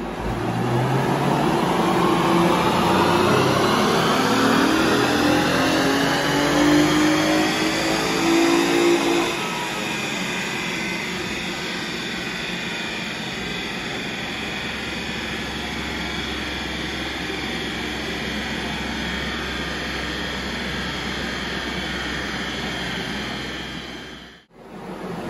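Honda Accord V6 at full throttle on a chassis dynamometer, on its stock calibration, its note rising steadily through the rev range for about nine seconds. It then lifts off, and the engine and dyno rollers spin down with a steady whir that slowly falls in pitch before fading out.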